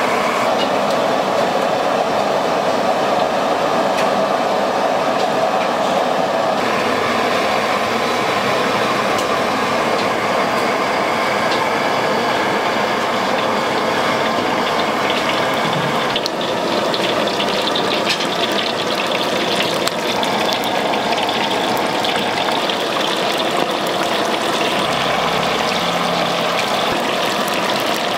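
Steady sizzling and gas-burner rush from stir-frying in a large wok, with the sound changing suddenly about six seconds in and again about sixteen seconds in.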